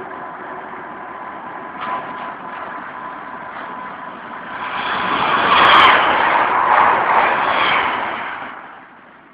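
Running noise of a moving train heard from on board: a steady rush with a faint high whine over the first few seconds, swelling much louder about five seconds in and dying back down near the end.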